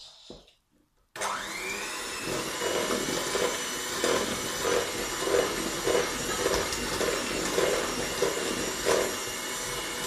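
Electric hand mixer switched on about a second in: its motor spins up with a rising whine, then runs steadily as the beaters work the cookie mixture, with a regular pulse about every two-thirds of a second.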